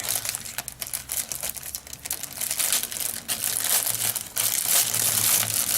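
Crinkly packaging around a makeup brush rustling and crackling as it is handled and worked open, in a run of irregular crackles.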